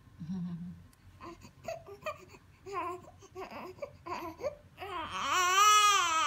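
A six-week-old baby fussing in short broken cries, then one long wailing cry near the end, the loudest part, as its legs are being massaged.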